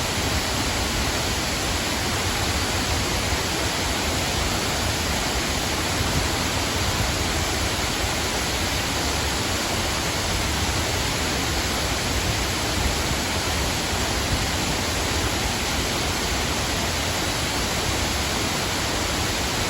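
Waterfall: falling water rushing steadily as one dense, even noise with no breaks or changes.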